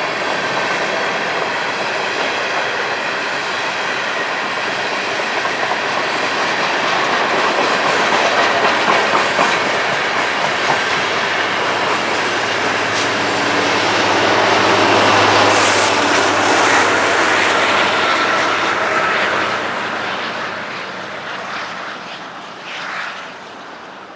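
Empty BNSF coal train rolling past: the steel wheels of the empty hopper cars clatter over the rail joints, with some wheel squeal. It swells to its loudest around the middle, then fades away over the last few seconds.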